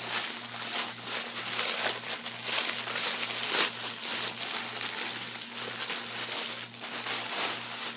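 Plastic packaging crinkling and rustling, handled in irregular bursts, over a faint steady low hum.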